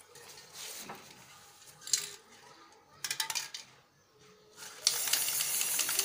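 Aerosol spray-paint can: a short metallic rattle a little past the middle, then a steady, loud spraying hiss that starts near the end.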